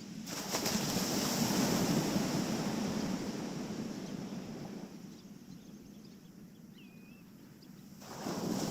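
Waves breaking and washing up the beach: a rush of surf that builds over the first second or so, fades away after about five seconds, and comes back with the next wave near the end. A brief high gliding chirp sounds about seven seconds in.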